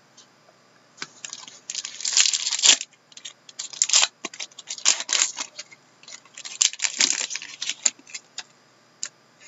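Foil wrappers of Upper Deck Masterpieces hockey card packs crinkling in several short bursts as a pack is pulled from the stack and opened.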